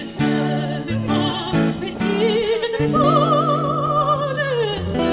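Music: a melody line with heavy vibrato holds a long note from about three seconds in, then slides down near the end, over held low accompaniment notes.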